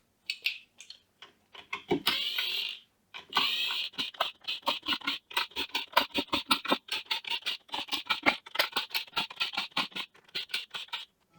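Rapid, irregular light clicking and tapping, several clicks a second, with a short scraping rush about two seconds in.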